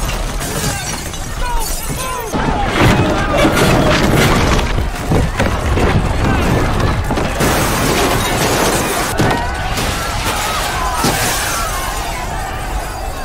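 Film sound effects of the ground and buildings breaking up: deep rumbling, cracking and glass shattering, with a crowd shouting and screaming and orchestral music underneath. It grows louder about two and a half seconds in.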